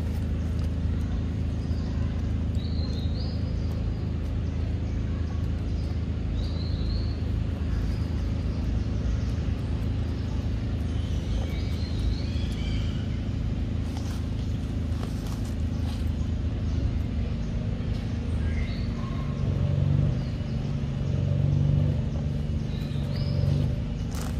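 A steady low mechanical hum, like an engine running at a distance, with a few short bird chirps above it. The hum swells around twenty seconds in and again near the end.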